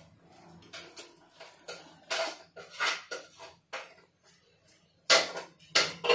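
Stainless steel cooking pot and metal utensils clattering on the stove: a run of irregular metal clanks and knocks, the loudest two about five and six seconds in, over a faint low hum.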